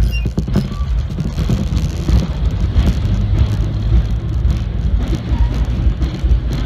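Vintage R1/9 subway car running along the track into a tunnel, heard from the front of the car: a loud low rumble of wheels and running gear with a constant clatter of clicks and rattles.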